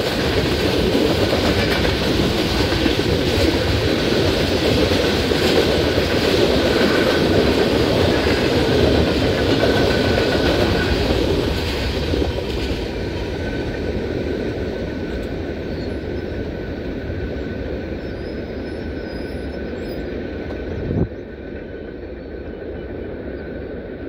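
Freight cars of a Norfolk Southern manifest train roll past with steady wheel clatter and rail rumble. About halfway through, the last car clears the crossing and the sound falls to a quieter fading rumble. A steady high ringing, plausibly the crossing bell, carries on behind it, and a single sharp knock comes near the end.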